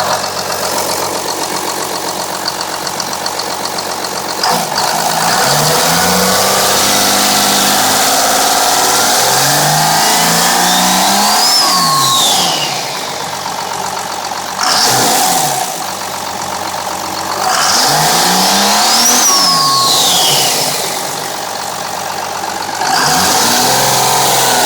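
Car engine idling, then revved up and let back down twice, with a short blip between. A thin high-pitched whine climbs with the revs and falls as they drop, which the owner wonders may be turbo whine.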